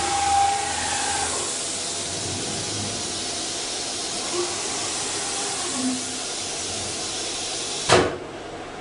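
CNC router machinery giving a steady hiss. A sharp click comes near the end, after which the hissing drops.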